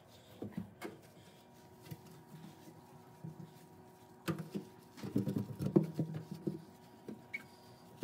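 Damp paper towel wiping and rubbing over the microwave oven's door and interior surfaces, giving soft intermittent scuffing sounds. There is a sharper knock about halfway through, then a busier stretch of rubbing and handling.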